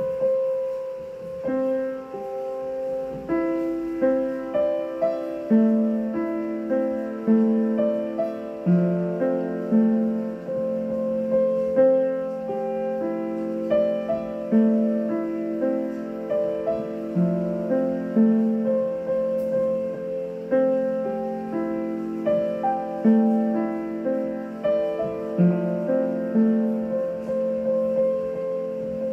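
Piano music: a melody of single notes struck one after another at an even pace over held lower notes.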